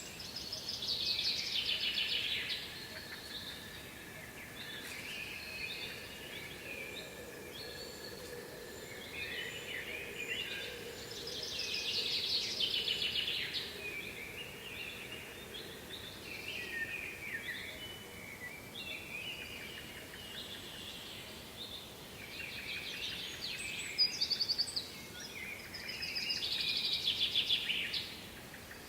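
Songbirds singing: repeated rapid trilled phrases, some louder and nearer, over a faint steady hiss.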